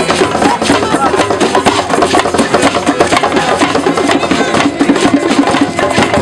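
Music with busy, rapid percussion, many quick knocking hits a second, under a shifting pitched part.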